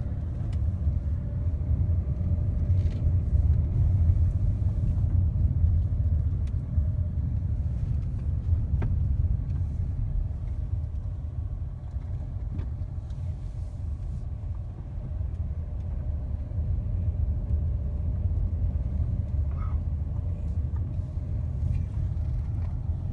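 Steady low rumble of a car moving slowly, heard from inside the vehicle.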